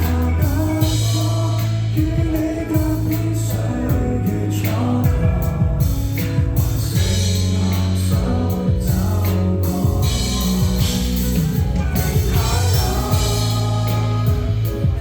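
Music: a song with a voice singing over instrumental backing with steady bass notes and drum hits.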